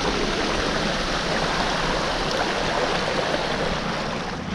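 Mountain bike tyres rolling through shallow floodwater on a paved street, churning up a steady splashing hiss of water that eases slightly near the end.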